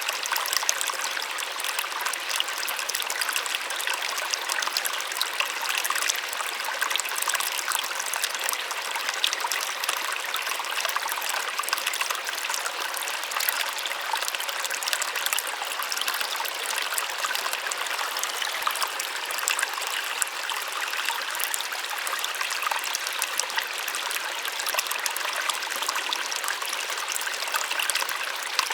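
Small waterfall splashing steadily: a light, even rush of many small splashes, with little low rumble.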